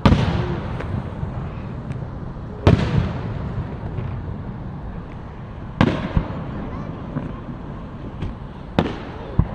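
Fireworks going off: a loud bang about every three seconds, each followed by an echoing tail, with a quicker extra bang near the end.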